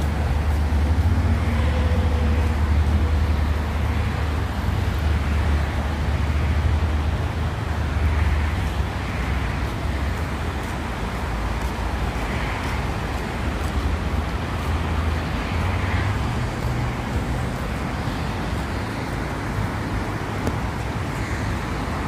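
Steady outdoor rushing noise with a deep rumble that eases about two-thirds of the way through: water running over the stones of a low river weir, mixed with road traffic.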